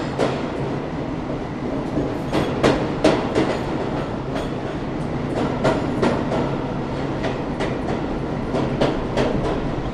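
A train running along the track: a steady rumble with the wheels clicking repeatedly over the rail joints.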